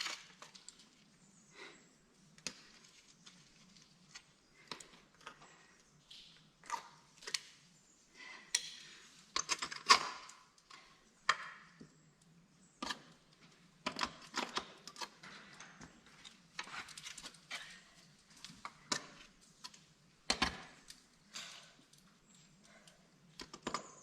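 Irregular metallic clicks, clinks and scrapes from drytooling gear: ice-tool picks hooking and scraping on rock and carabiners jangling on a harness. The sharpest knock comes about ten seconds in.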